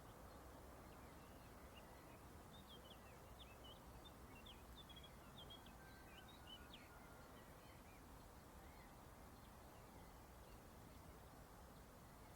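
Faint outdoor ambience: a steady low hiss with distant small birds chirping, a flurry of short chirps in the first half that thins out later.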